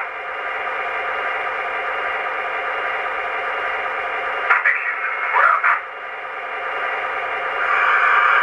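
Sound-equipped MTH S-scale C&O diesel model's speaker playing a steady idling engine under a hiss of radio static. A short burst of crew radio chatter comes about halfway through, and the sound grows louder near the end.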